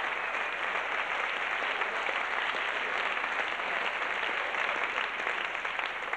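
Theatre audience applauding steadily, the clapping fading near the end.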